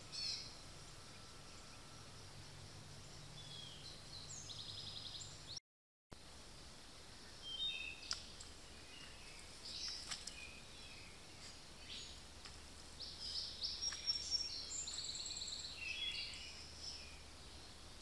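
Several songbirds singing and calling in woodland, short chirps and trills one after another, busiest in the second half. The sound cuts out completely for about half a second near six seconds in.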